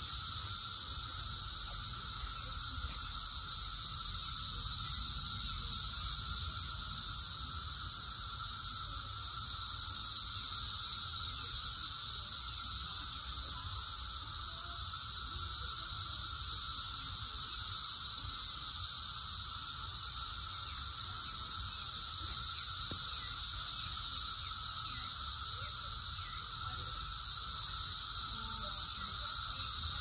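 A dense chorus of Brood X periodic cicadas: a continuous, steady high-pitched drone with a weaker lower hum beneath it, unbroken throughout.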